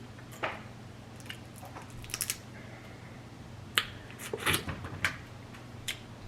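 Blue crab shells being cracked and pulled apart by hand: a string of sharp, irregular cracks and snaps, with a small cluster of them about halfway through, over a low steady hum.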